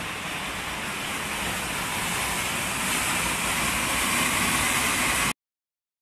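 Steady rushing of the Düden waterfall, heard from the cave behind the falls, growing a little louder, then cut off abruptly a little after five seconds in.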